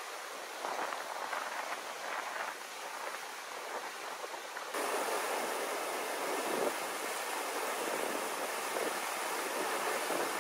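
Rushing whitewater of a mountain stream pouring through a rock channel, a steady hiss. About halfway through it jumps louder and brighter as the water spills over a rock ledge out of a lake into a pool.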